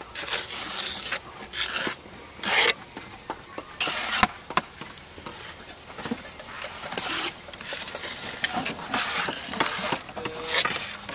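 Steel trowel scraping and smoothing cement mortar against handmade clay barrel roof tiles, in a run of short scraping strokes with a few sharp clicks of the blade on the tile.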